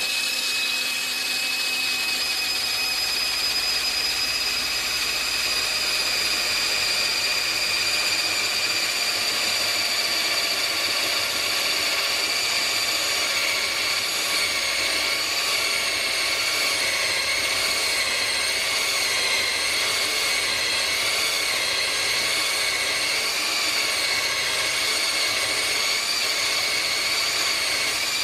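Cordless drill running at a steady speed with a high whine, spinning polyurethane longboard wheels while a round file rasps against them, cutting grooves. The whine wavers slightly in pitch in the second half.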